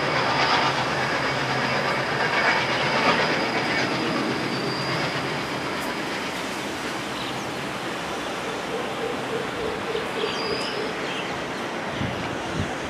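A train running past, with a steady rumble and clatter of wheels on the rails that slowly fades.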